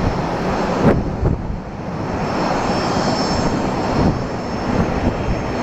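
Jet engine noise of a Boeing 737-400 climbing out after takeoff, from its two CFM56-3 turbofans: a steady, loud rumble with a faint high whine in the middle.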